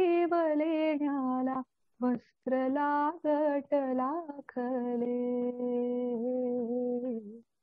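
A woman singing unaccompanied, a tune set to a Marathi poem: several short sung phrases with brief breaths between them, then one long held note that wavers slightly and stops near the end.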